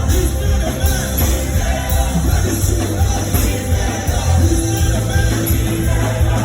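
Music with singing and a strong bass line.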